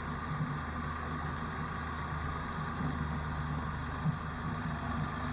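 Diesel-driven wood chipper running steadily, a constant low engine drone, with a brief knock about four seconds in.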